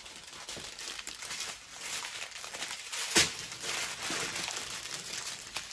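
Plastic packaging of a diamond painting kit crinkling as it is handled, with one sharp click about three seconds in.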